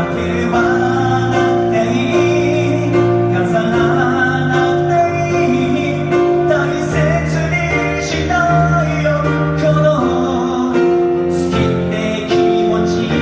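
Live band playing a slow Japanese pop ballad: long held keyboard chords and bass under a wavering melody line.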